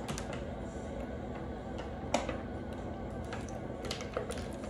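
Tarot cards being handled and shuffled: scattered soft clicks and taps, with one sharper click about two seconds in.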